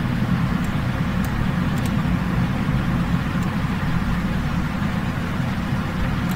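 A steady low rumble of background noise, with a few faint, sharp clicks scattered through it.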